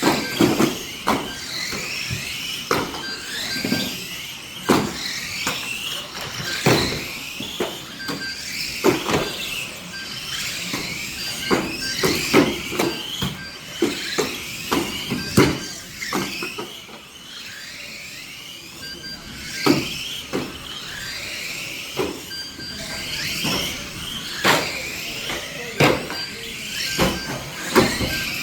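Several radio-controlled model stock cars racing: their motors whine up and down in pitch as they accelerate and brake. Frequent sharp knocks come through, with short repeated beeps at two fixed pitches.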